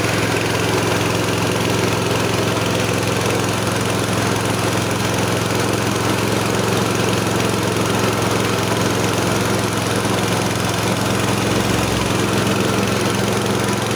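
KD500 WG mini rice mill running steadily under load, driven by its small engine: a constant engine drone under a steady hiss as rice passes through the machine.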